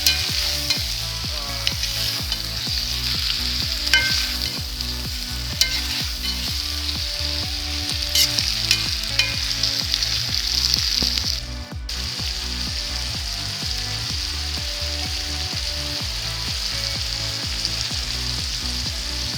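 Chicken and chopped onion sizzling steadily in hot fat in a kazan, with a few sharp scrapes and clicks of a utensil stirring them in the first half.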